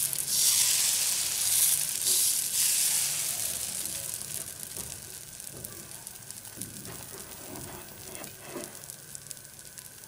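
Dosa batter sizzling on a hot flat pan as it is spread in circles with a steel ladle. The sizzle is loudest in the first few seconds, then fades steadily to a fine crackle.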